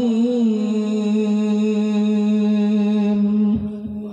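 Male Quran reciter's voice through a microphone, a wavering melodic line settling into one long held note at the close of the recitation. The note falls away near the end, with a low thump.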